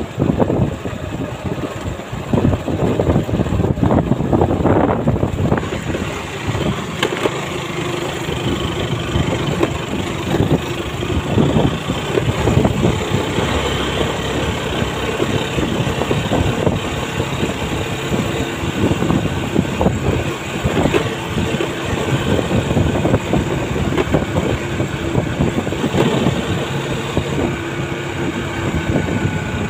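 A motor vehicle's engine running steadily while driving along a rough dirt road, with frequent knocks and jolts, mostly in the first few seconds.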